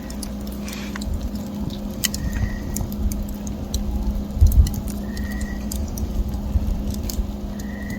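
Campfire crackling with scattered sharp pops and snaps, over a steady low hum and rumble. A short high chirp repeats about every two and a half seconds.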